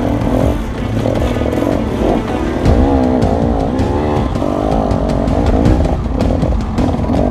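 KTM off-road motorcycle engine revving up and down under the rider's throttle, its pitch rising and falling over and over, with frequent knocks and clatter from the bike over rough ground.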